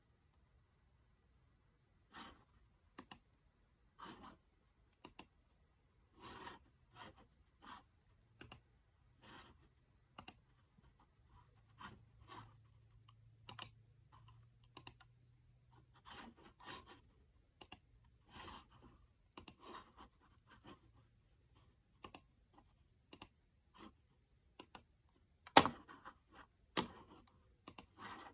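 Scattered single clicks of a computer mouse and laptop keys, irregularly spaced about one a second, with the loudest couple of clicks near the end.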